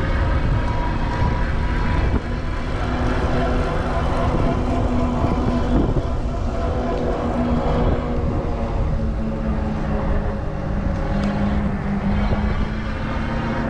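Headwind buffeting the microphone in a steady low rumble while riding an e-bike, with a faint whine from the e-bike's electric motor underneath.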